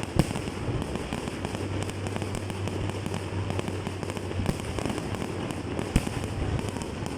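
Fireworks display: a dense, continuous crackling of bursting shells, with sharp bangs just after the start and about six seconds in.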